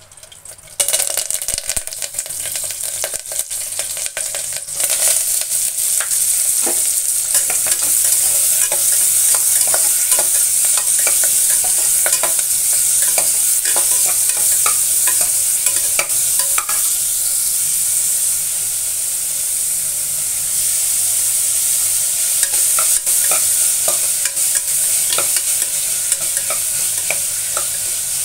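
Chopped onions and curry leaves frying in hot oil in a pressure cooker. The sizzle starts suddenly about a second in and grows louder around five seconds, with the clicks and scrapes of a steel spoon stirring against the pot.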